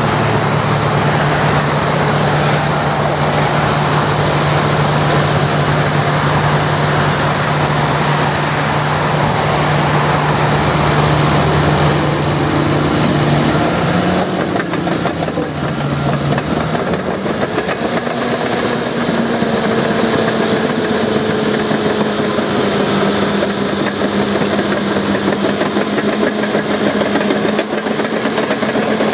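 Heavy construction machine's diesel engine running under work, a steady drone over heavy mechanical noise; around the middle the engine note dips briefly, then settles at a higher, steady pitch.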